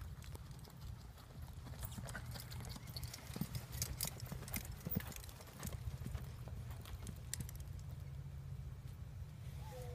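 Horse's hooves beating on a dirt arena at a lope, loudest as the horse passes close about four seconds in, then fading as it moves away.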